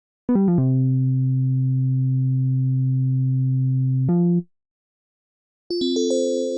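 Reason 12 Subtractor software synthesizer patches being auditioned. A quick run of notes leads into a held low chord that stops at about four seconds. After a short gap, a new bell-like patch with high overtones and a wavering pulse starts near the end.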